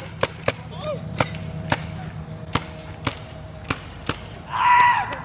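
Tippmann Cronus .68 caliber paintball marker firing about nine single shots in quick, uneven succession. A person cries out loudly near the end.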